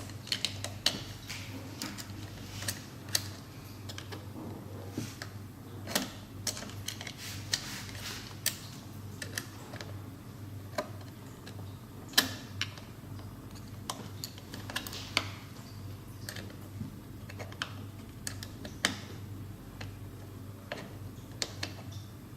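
Screws being driven by hand with a screwdriver: irregular light clicks and taps of metal on metal and plastic, over a steady low hum.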